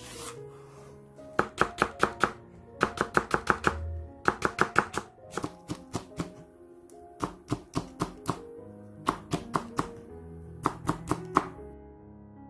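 Large kitchen knife slicing a Korean leek and then a red chili on a wooden cutting board: runs of quick knife taps against the board, about five or six a second, with short pauses between runs. Soft background music plays underneath.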